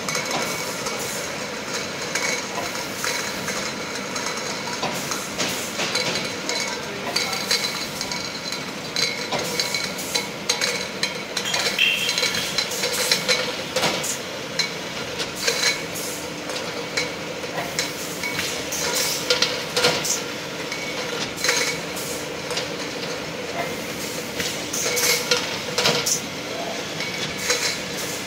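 Metal tins clinking and rattling irregularly against each other and the steel guide rails as the slat-belt conveyor of a GemiFill C-model volumetric filling machine runs them into the line, over a steady machine hum.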